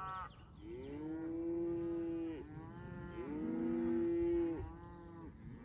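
Cows and calves mooing in turn: a run of long, drawn-out moos, some overlapping at different pitches, the loudest a little past the middle. The herd is unhappy at being moved to a new field.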